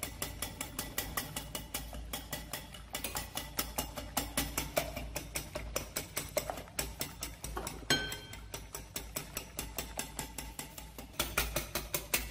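Wire balloon whisk beating egg whites into foam in a glass bowl, its tines clicking against the glass about five times a second. One louder clink with a brief ring about eight seconds in.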